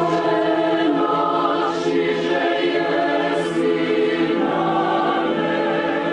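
A choir singing slow, long-held chords in several voice parts, with the sung consonants now and then audible.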